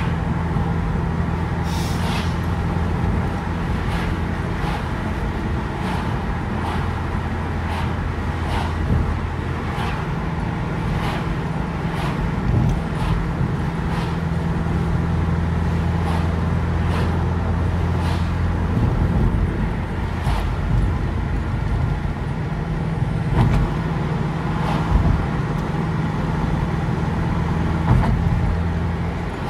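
Steady engine drone and tyre noise inside a moving car's cabin, with faint light bumps from the road surface every second or so.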